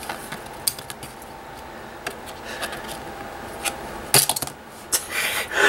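Light plastic clicks and taps of a Bakugan toy ball and a card being handled, with a louder cluster of clatter about four seconds in.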